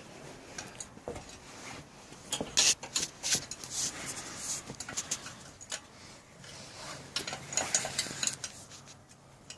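Irregular clicks, clinks and knocks of hand tools and parts being handled while working the engine loose from a pocket bike. The sounds come in scattered bunches, busiest a few seconds in.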